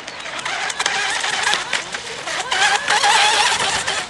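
Brushless electric motor of a Sigma Evo RC speedboat whining at speed, its pitch wavering up and down, growing louder in the second half.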